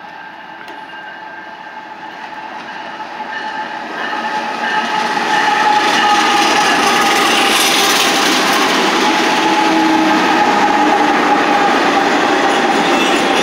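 Several diesel locomotives at the head of a BNSF freight train approaching and then passing close by. The sound builds over the first five seconds or so, then holds loud and steady as the units go by.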